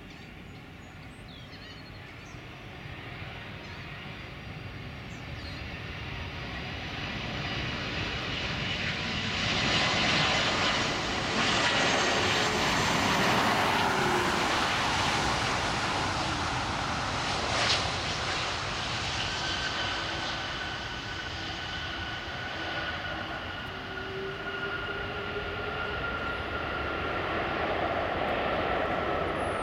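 Airbus A330-243 airliner's Rolls-Royce Trent 700 turbofan engines on landing approach: a jet whine that builds steadily to its loudest as the plane passes low over the runway, its tones sliding slowly down, with one brief sharp sound partway through. It then fades and swells again near the end as the jet rolls out on the runway.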